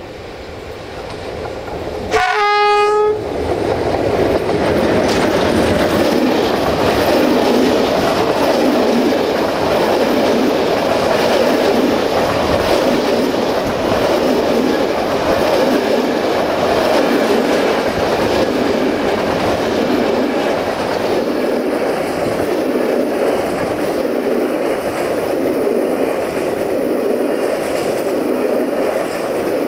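Class 060-DA (LDE2100) diesel-electric freight locomotive sounds one short horn blast about two seconds in. Its long train of empty stake flat wagons then rolls past close by, the wheels and wagons clattering steadily and rhythmically on the track.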